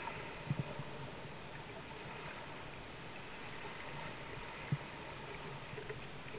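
Steady rush of wind and choppy water along a Hobie Adventure sailing kayak under way on a broad reach, with a few dull low thumps: two close together about half a second in and one more a little past the middle.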